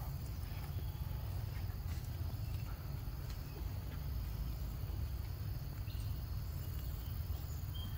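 Outdoor ambience: a steady low rumble with faint insect chirring above it.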